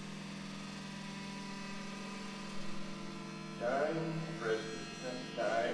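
Steady, sustained electronic synthesizer drone from the live band, with no beat. About three and a half seconds in, a person's voice enters over it in short phrases.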